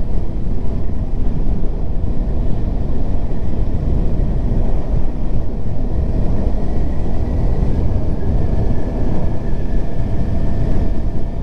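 Steady rush of wind on the microphone mixed with the drone of a Kawasaki Ninja 400's parallel-twin engine, cruising at about 60 km/h.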